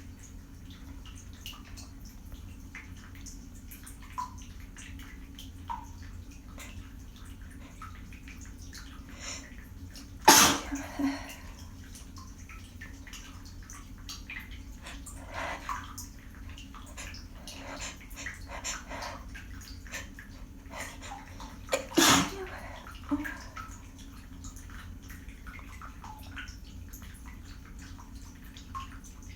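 A person sneezing twice, about ten seconds in and again about twenty-two seconds in, each sneeze sharp and loud, followed by a few smaller breathy sounds, over a steady low background hum.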